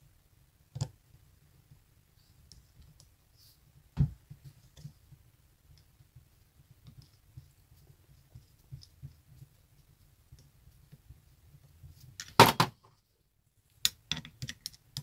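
Screwdriver clicking and tapping on the brass terminal screws and metal terminal box of the coolant pump motor as the terminals are tightened: scattered small clicks, a sharper knock about four seconds in, and a loud short clatter near the end.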